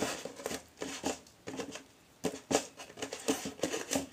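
Hands handling duct tape and a small handmade toy tent: irregular light taps, clicks and rustles, with a quieter gap around the middle.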